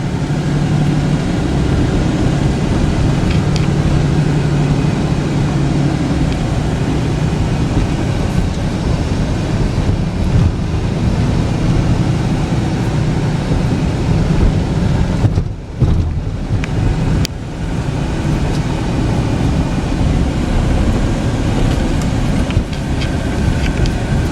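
Cab interior noise of a 2009 Dodge Ram 5500 wrecker on the road: a steady engine and road drone that briefly dips about fifteen seconds in.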